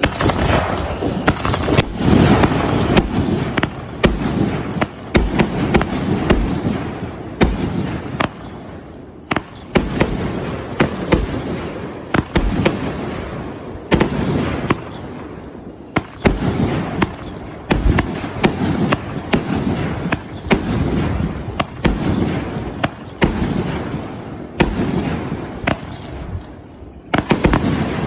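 A 1.2-inch, 176-shot fireworks cake firing: sharp bangs come in quick succession, several a second at times, over a continuous crackling rush.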